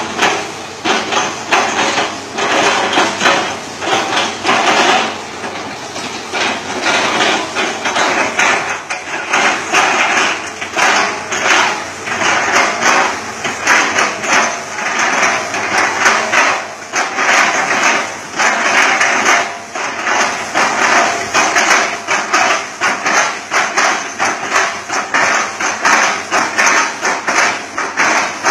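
Hitachi Zaxis 200-5G excavator's bucket chopping up an oil palm trunk: loud, rapid, repeated knocking and cracking impacts that go on without a break.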